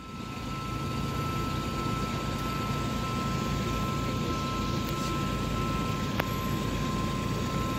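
Railway level-crossing warning signal sounding a steady high two-note tone while the crossing is closing, over a steady low drone that swells in during the first second.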